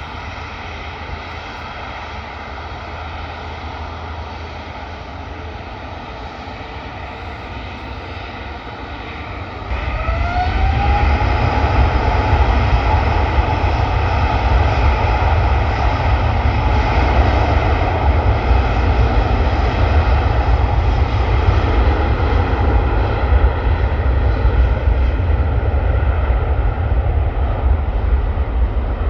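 Jet airliner engines running steadily with a whine, then spooling up about ten seconds in: the whine glides up in pitch and levels off as a louder, deeper rumble sets in, as when thrust is set for takeoff.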